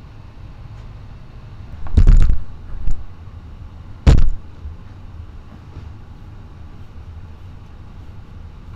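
Metal tool noises from work on an ATV's rear axle hub: a loud clatter lasting about a third of a second around two seconds in, a short knock, then a single sharp clank about four seconds in, over a steady low hum.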